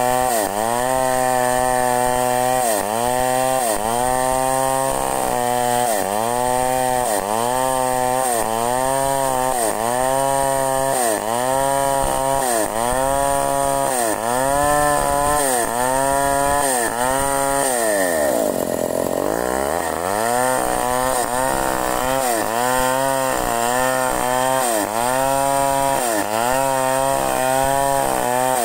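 Two-stroke chainsaw ripping lengthwise along a large log. The engine's pitch sags under load and picks back up about once a second. About two-thirds of the way through, it slows sharply and then revs back up.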